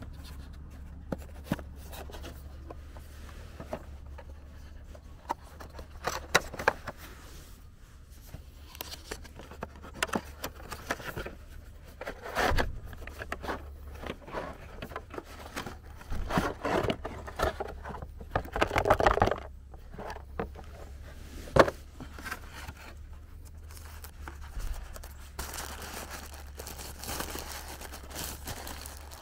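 A cardboard product box being handled and opened by hand: scattered scrapes and taps, with a few bursts of louder rubbing. Near the end, a plastic bag crinkles as the item inside is pulled out.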